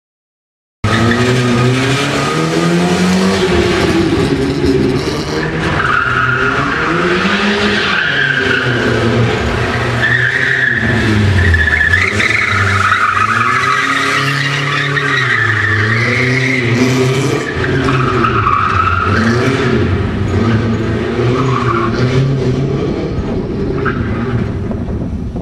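Rally car engine revving hard and dropping back again and again as the car is driven around a tight cone course, with tyres squealing through the turns.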